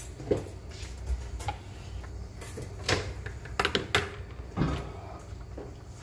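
Scattered knocks and clatters of kitchen work, the loudest cluster about three to four seconds in. Among them is a wire cooling rack being set down on a granite counter.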